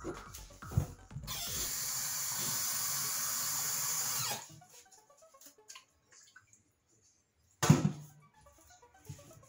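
Kitchen tap running into a small bowl in a stainless-steel sink for about three seconds, then shut off. A sharp knock comes just before the water starts, and a brief loud thump comes near the end.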